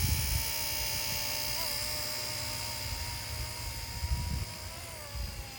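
Small electric scale RC helicopter (RC Era C032 UH-1 Huey) in flight: a steady motor-and-rotor whine that wavers briefly about one and a half seconds in and sags slightly in pitch near the end. Wind rumbles on the microphone underneath.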